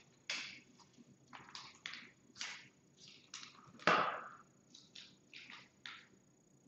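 A kitten playing: about a dozen short scratchy scrapes and rustles, the loudest about four seconds in.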